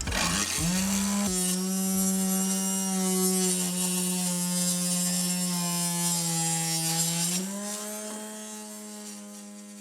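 Homemade mini table saw, a 4-inch blade on a 12 V 775 DC motor, spinning up and cutting wood. The motor's whine rises at first, drops in pitch about a second in as the blade bites into the wood, holds lower through the cut, and climbs again near the end as the blade runs free.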